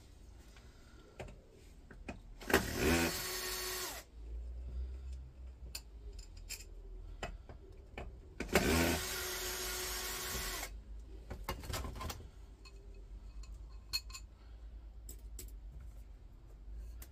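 Cordless drill-driver spinning up and running twice, each run about a second and a half to two seconds, on the screw at the centre of a monitor stand's glass base. Light clicks and knocks of the base being handled come between the runs.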